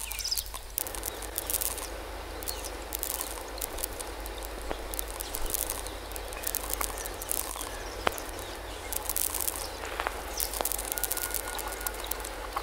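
Experimental sound-art recording: a dense crackling hiss with many scattered sharp clicks over a steady low hum, and a few brief thin tones near the end.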